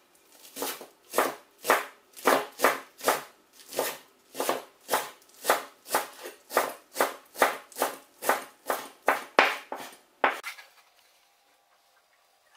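A Chinese cleaver chopping garlic chives on a bamboo cutting board: steady, even knocks of the blade on the board, about three a second, that stop about ten seconds in.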